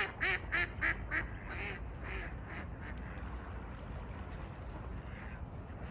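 A duck quacking in a quick run of short calls, about three a second, that grow fainter and further apart and stop about three seconds in, over a steady low rumble.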